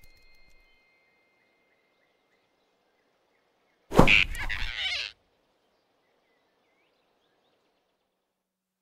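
A single loud cartoon thump with a whooshing sweep, lasting about a second, as a big hand smacks over a small animal; near silence around it.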